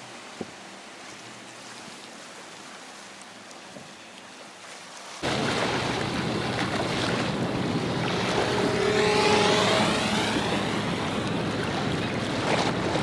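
Motorboat running through rough, breaking surf, with heavy wind on the microphone; the loud rush of water, wind and engine starts abruptly about five seconds in after a quieter stretch.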